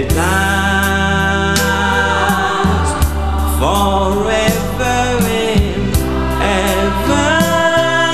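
A love song: a man singing long held notes over a band with a steady bass line and a regular drum beat.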